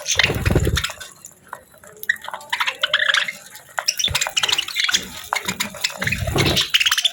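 Budgies chirping and warbling in rapid, clicky chatter, with two low thumps, one at the start and one about six seconds in.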